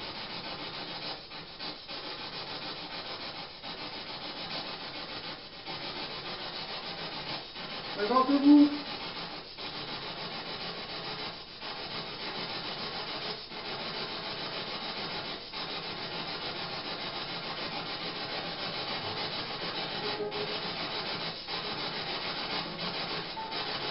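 Steady hiss of static, broken by brief dropouts about every two seconds.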